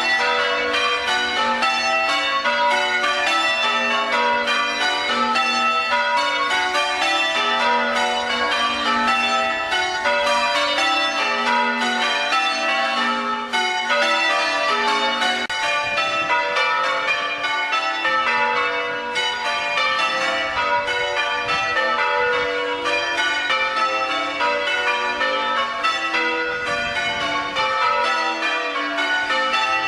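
Church tower bells in full-circle change ringing: a continuous, evenly paced run of struck bell notes in shifting order, rung as part of a quarter peal.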